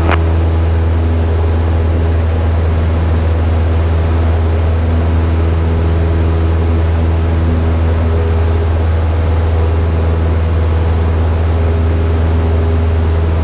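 Cessna 172's piston engine and propeller running steadily in flight, heard from inside the cabin as an even, loud drone with a strong low hum.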